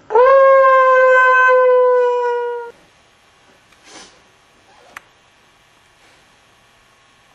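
A loud, held scream of about two and a half seconds: the pitch shoots up at the start, sags slightly, then cuts off abruptly. A faint rustle and a sharp click follow a little later.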